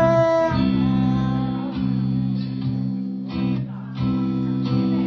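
Guitar-backed song in an instrumental stretch between sung lines: guitar chords ring on, changing a few times, with no vocals.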